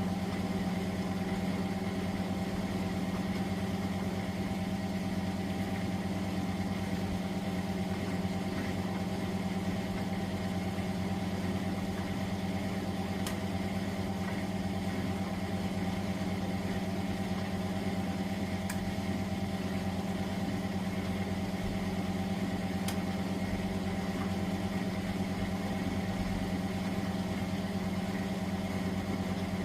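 Miele W423 washing machine running with a steady, constant hum, its pitch holding level throughout, with a few faint ticks.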